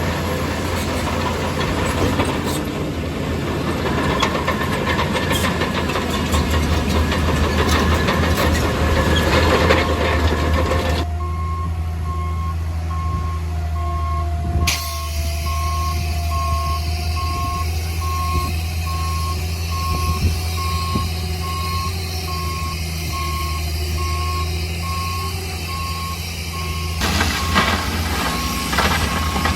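Heavy earthmoving machine's engine running steadily, with a reversing alarm starting about a third of the way in and beeping in an even, repeating single tone.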